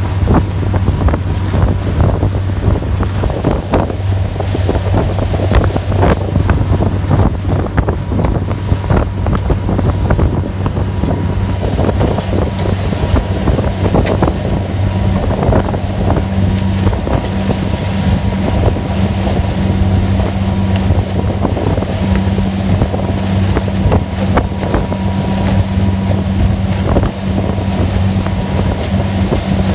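Motorboat engines droning steadily at high speed (about 24 knots), with wind buffeting the microphone and water rushing and slapping against the hull in irregular knocks.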